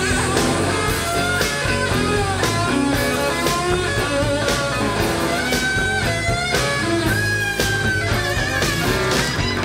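Background rock music with a guitar melody and a steady drum beat.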